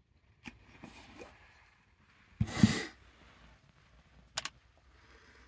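A short, loud breath close to the microphone about halfway through, with a few light clicks before and after it.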